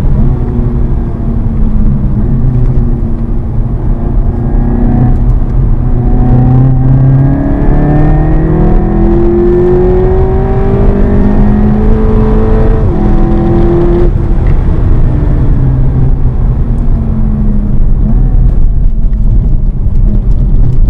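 Seat Leon Cupra 280's 2.0-litre turbocharged four-cylinder heard from inside the cabin at speed, over heavy road and tyre noise. The engine pulls with a steadily rising pitch, drops at a gear change about two-thirds of the way in, then its revs fall away as the car comes off the throttle.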